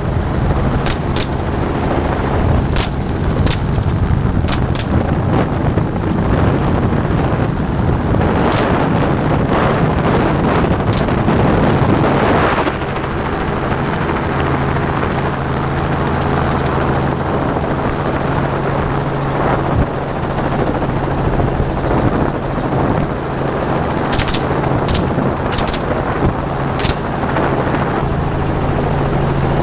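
Helicopter rotor and engine running steadily, heard through the open door, with rifle shots fired from the aircraft at the hogs: a quick string of shots in the first few seconds, a couple of single shots, and another rapid string near the end.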